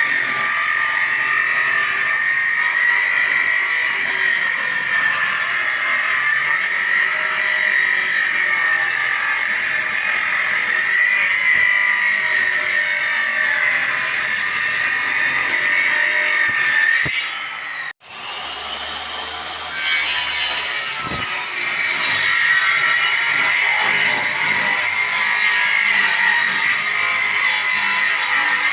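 A power tool running steadily on wood, its motor whine wavering slightly in pitch. About two-thirds of the way through it cuts out for an instant, runs quieter for a couple of seconds, then carries on as before.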